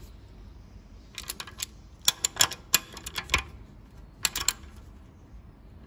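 Socket ratchet clicking in three short runs as a nut is turned down onto a knuckle arm stud bolt.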